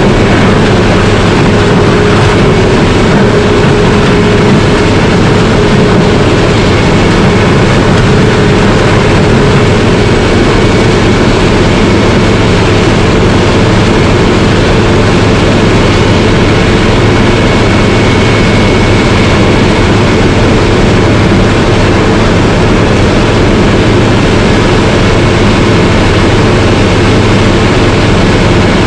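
Bandit 600-horsepower horizontal grinder running steadily, a loud constant drone of heavy engine and machinery.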